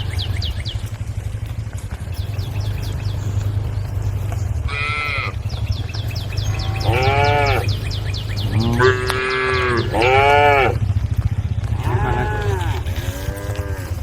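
Cattle mooing, about six drawn-out calls one after another in the second half, over a steady low rumble.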